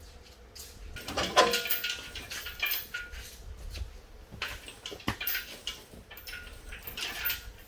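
Metal clinks, knocks and scrapes, with a short creak about a second in, as an LS V8 engine is worked down into a car's engine bay.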